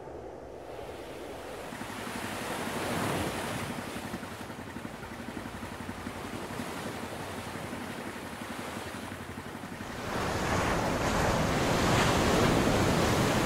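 Ocean surf breaking on a beach: a steady rush of waves that swells about three seconds in and grows louder about ten seconds in.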